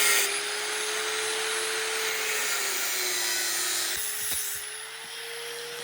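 A small power tool running with a steady whine over a hiss. Its pitch drops a little midway, and a few clicks come about four seconds in before it runs on.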